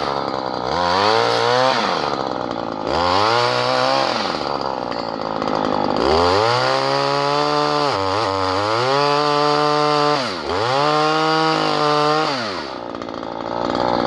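Stihl KM94RC multi-tool's two-stroke engine driving a pole chainsaw (lopper) attachment through thin sycamore branches, revving up and dropping back in several short bursts, then held high for a longer stretch with two brief dips before falling back to idle near the end.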